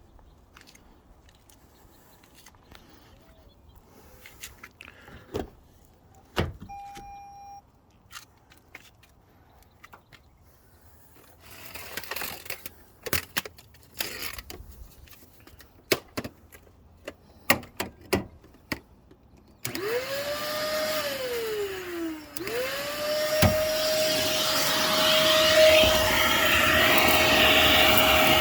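Scattered clicks and knocks of handling, with one short beep, then a vacuum cleaner is switched on about two-thirds of the way in. Its motor whine spins up, falls away briefly, then spins back up and runs steadily with a loud rush of suction.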